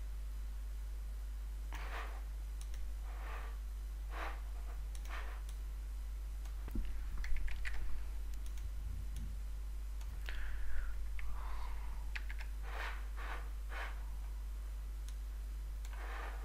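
Computer mouse and keyboard clicks, scattered irregularly with a quick cluster about halfway through, over a steady low hum.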